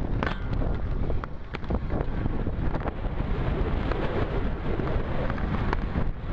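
Wind buffeting the camera microphone, with scattered clicks and knocks from a skater landing on and grinding along a metal handrail.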